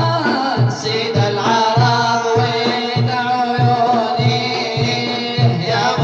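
Arabic nasheed: male voices singing a drawn-out melody over a steady low beat.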